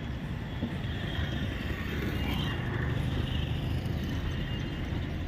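Steady low rumble of a running motor vehicle, engine and road noise.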